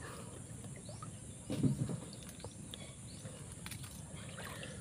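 Small birds chirping in many short, falling notes over a steady high insect hum, with a brief low splash in the water about a second and a half in.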